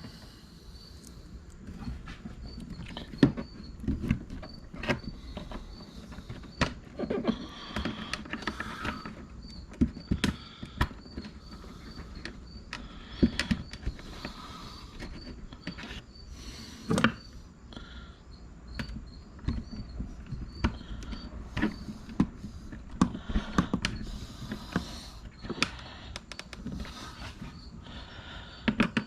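Small metal hardware and hand tools being handled: irregular clicks, taps and clattering knocks as screws and washers are fitted to a car door handle.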